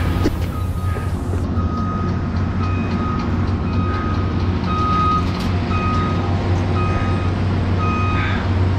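Back-up alarm on construction machinery beeping at one steady pitch, about once a second, over the steady low rumble of a running engine.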